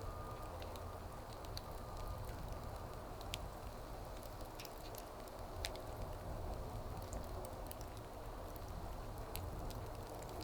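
Wood fire burning with a steady low hiss and scattered small crackles and pops, a couple of sharper pops about three and five and a half seconds in.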